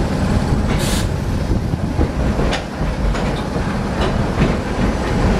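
Sóller's historic electric tram running along its street track, heard on board: a steady rumble with several sharp wheel clicks on the rails and a brief hiss about a second in.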